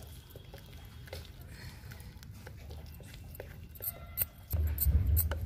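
Besan batter being stirred by hand in a bowl of buttermilk: soft, scattered clicks and scrapes of the utensil against the bowl. About four and a half seconds in, a louder low knocking and thumping as the bowl is handled.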